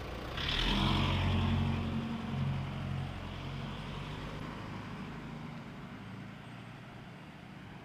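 A motor vehicle passing close by on a street, its engine and tyre noise rising suddenly about half a second in and then fading away slowly.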